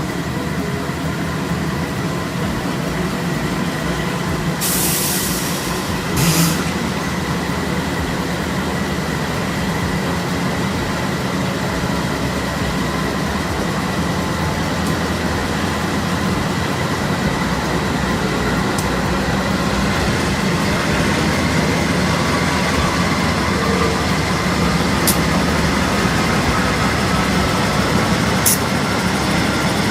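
A train running on the rails: a steady loud rumble with thin, high, steady tones, one slowly rising in the second half. Short bursts of air hiss come about five and six seconds in, and twice more near the end.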